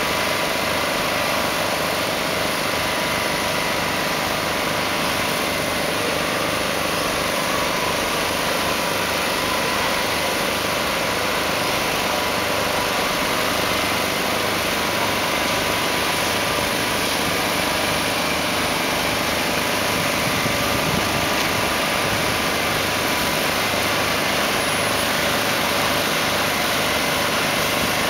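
Heavy-haulage truck's diesel engine running steadily at an even level, with no sudden changes.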